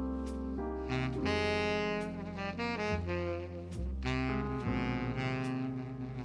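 Background jazz music: a saxophone-like lead playing sustained melodic notes over a walking bass, with a light beat.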